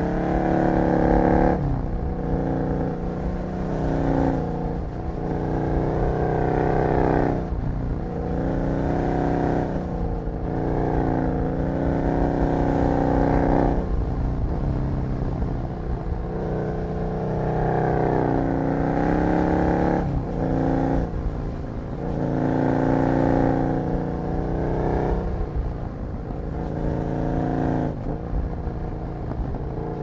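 Husqvarna Nuda 900's parallel-twin engine pulling up a twisty mountain pass, heard raw from on the bike. The revs climb and then fall away sharply every few seconds as the throttle and gears change through the bends.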